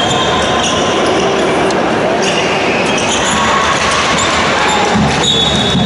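Basketball game sounds in a large gym: a ball bouncing on the hardwood, short high sneaker squeaks, and players' shouts over a steady hall din.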